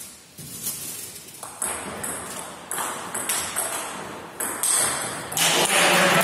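Table tennis rally: the ball is struck by rubber-faced rackets and bounces on the table, giving sharp hollow clicks that ring briefly in the hall, roughly one every half second to a second.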